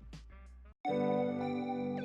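Background music: a plucked, guitar-like track ends, a moment of silence follows under a second in, and a new track begins with held keyboard chords.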